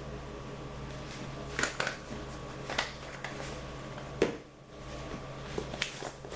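A few light clicks and taps from a measuring spoon and spice containers while black pepper is measured into a marinade, over a steady low electrical hum.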